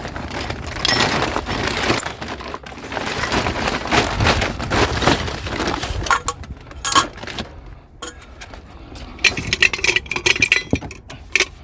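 Small metal and glass scrap items clinking and clattering against each other as they are rummaged through and picked up, with many irregular knocks and a few louder rattles.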